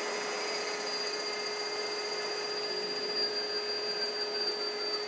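Bare AC induction motor, driven by a DIY-kit inverter, spinning with no load at its maximum speed: a steady whir with an even high-pitched whine.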